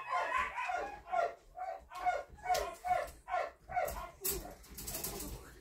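A young puppy yapping in a quick string of short, high yips, about three a second, that die away after about four seconds, followed by a few faint clicks.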